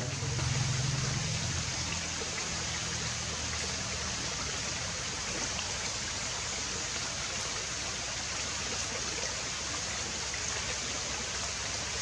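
Steady rushing noise of running water, like a stream, with no let-up.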